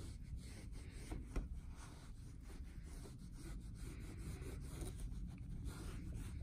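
Microfiber cloth rubbing back and forth over a car's painted bodywork around the third brake light opening, wiping off old adhesive residue. The sound is faint, made of uneven scrubbing strokes.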